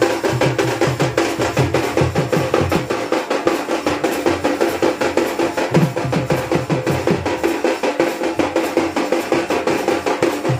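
Drums playing a fast, steady rhythm of rapid strokes over a steady held tone.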